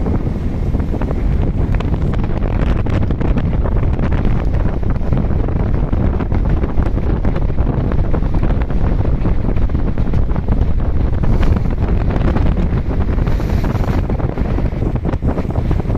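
Strong wind buffeting the microphone, a loud steady rumble, over the wash of a choppy sea.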